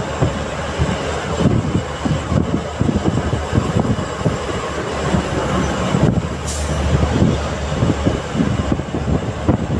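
Cab noise of a goods truck at highway speed: steady engine and road rumble with irregular low thumps and rattles of the cab, and a brief hiss about six and a half seconds in.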